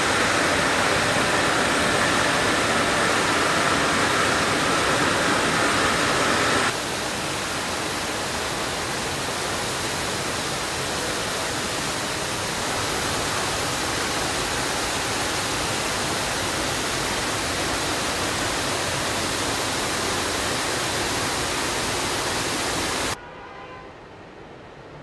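Steady hiss of spray jets playing over a Land Rover Defender body in a water-spray test booth. A brighter hiss runs for the first several seconds, then cuts to the even spray hiss, which drops away sharply near the end.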